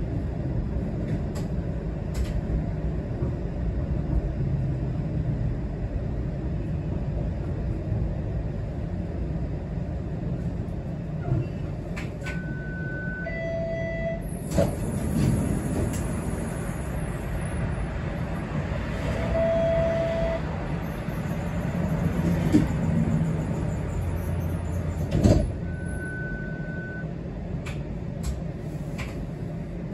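Inside a Toronto TTC streetcar: steady rumble of the car rolling, then standing at a stop, with a few short electronic beeps and a high hiss. A sharp clunk comes late on.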